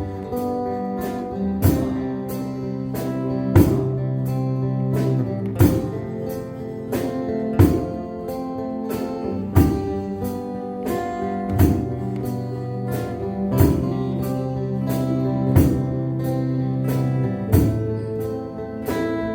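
Live band playing an instrumental passage of a slow pop song: guitars over held bass notes and a drum kit, with a strong drum hit about every two seconds.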